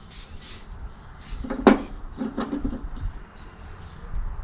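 Metal hand tools being handled: one sharp clank about a second and a half in, followed by a few lighter clinks and rattles.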